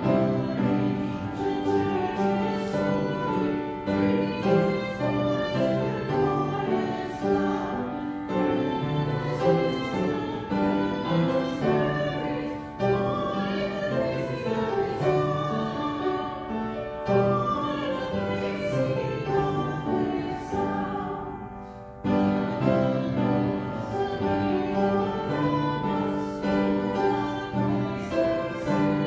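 Church congregation singing a hymn with keyboard accompaniment, in sustained chords, with a brief pause about three-quarters of the way through.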